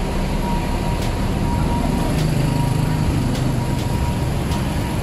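Busy city street traffic: a steady hum of cars and motor scooters, with one engine passing close and louder from about two seconds in.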